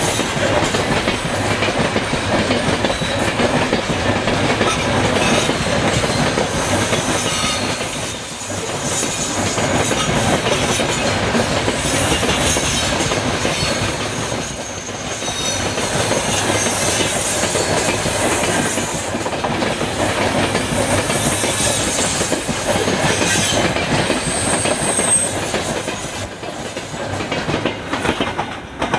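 Freight train of open gondola wagons rolling past close by: steady clatter and rumble of steel wheels on the rails, with a thin high wheel squeal over it. The sound drops off near the end as the last wagon goes by.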